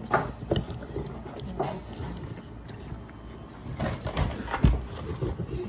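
A large mastiff licking and eating ice cream from a plastic bowl: irregular wet smacks and lapping clicks, with one heavier thump a little before the end.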